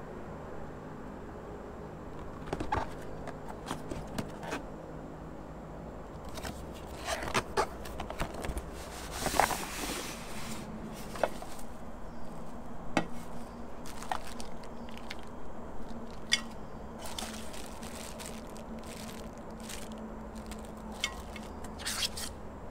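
Bubble wrap and plastic bags crinkling and rustling as a new electric hotpot-and-grill cooker is unpacked, with scattered clicks and knocks from the pan being handled.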